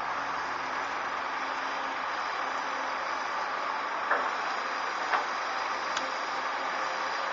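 Diesel engines of heavy earthmoving machinery, an excavator loading articulated dump trucks, running steadily, with sharp knocks about four, five and six seconds in.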